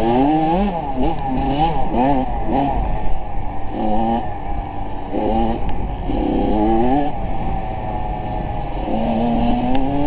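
A motor vehicle's engine revving, its pitch climbing and dropping again and again with short rises every second or so. There are a few gaps, around four and five seconds in, and a longer held note near the end.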